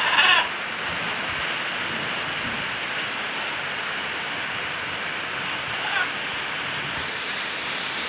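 Steady rain falling. A short, loud vocal sound comes right at the start and a brief faint one about six seconds in.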